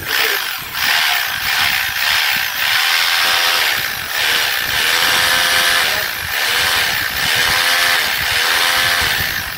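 Planet Power PH26RE hammer drill's electric motor running with the housing open, speeding up and easing off several times as the trigger is worked. It is a test run after reseating the contacts of the drill's forward/reverse switch, which connects in one direction but not the other.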